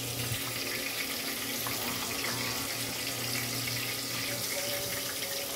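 Fish frying in oil in a covered pan, a steady sizzle like running water. A low hum underneath stops about four seconds in.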